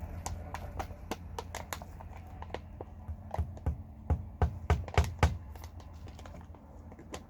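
A series of irregular knocks and taps, a cluster of heavier knocks in the middle, over a steady low hum.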